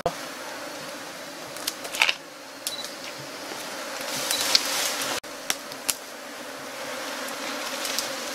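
Insects buzzing steadily, with a few short sharp clicks and rustles of brush.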